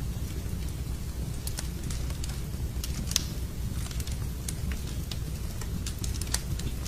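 Wood fire burning in a fireplace: a steady low rumble of the flames with frequent irregular crackles and pops, one louder pop about three seconds in.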